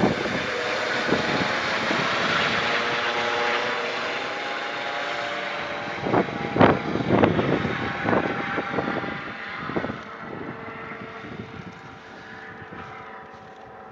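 Helicopter flying off after takeoff: a steady turbine and rotor drone with a few held tones, fading away over the last few seconds. Wind gusts buffet the microphone in between.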